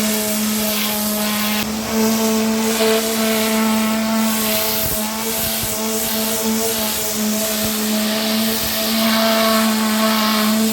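Commercial pressure washer running: a steady machine hum with a constant hiss of high-pressure spray.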